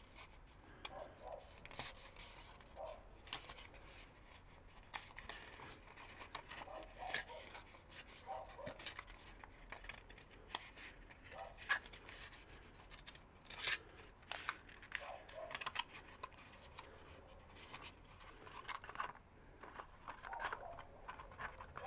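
Stiff 240 gsm card being folded and creased by hand along scored lines: faint, irregular crackles, rustles and small taps of the paper.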